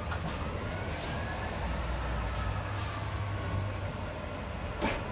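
Class 144 Pacer diesel railcar running, heard inside the driving cab: a steady low engine and running rumble with faint whining tones, broken by a few short hisses.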